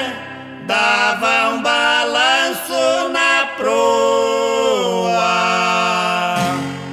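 Two men singing together in a Brazilian caipira duet, without much accompaniment, the closing phrase ending on a long held note that stops about six and a half seconds in.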